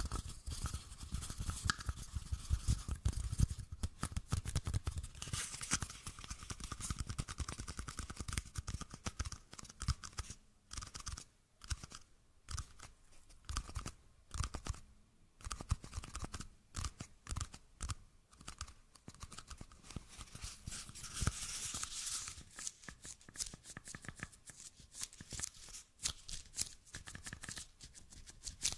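Thin plastic party cups handled close to a microphone for ASMR, a dense run of crisp clicks, taps and scratchy crinkles, sparser for a few seconds midway before thickening again.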